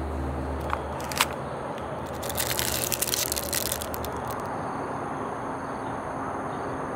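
Food packaging being handled: two sharp clicks about a second in, then about a second and a half of loud crinkling as a plastic-wrapped spoon is pulled out of the cardboard box, over a steady low background rumble.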